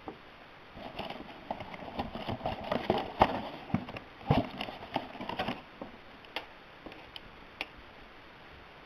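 Hands handling the small portable speaker and its packaging: a busy run of clicks, knocks and rustles for about five seconds, then a few single clicks.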